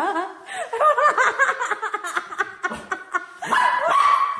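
A woman laughing in quick, repeated bursts.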